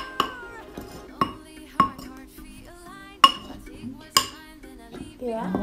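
Metal spoon clinking against a white ceramic mug while stirring a thick flour dough, five sharp clinks about a second apart over background music.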